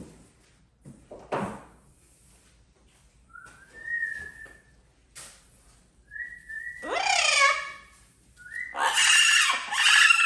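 Yellow-naped Amazon parrot whistling: a held note about four seconds in, then twice a whistle that breaks into loud, wavering calls, the second near the end.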